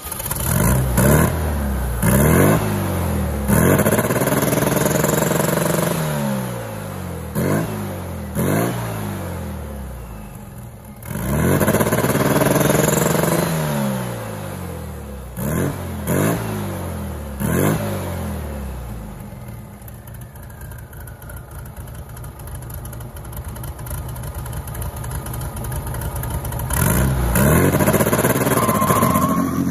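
Turbocharged air-cooled VW Beetle flat-four engine revved in quick blips and held several times at a steady high rev against the 2-step launch limiter, falling back to idle in between, with a longer spell of idle past the middle.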